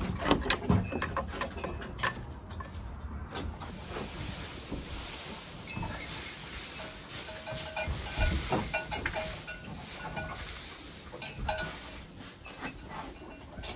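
Dry hay rustling and crackling as an armful is gathered and pulled up by hand.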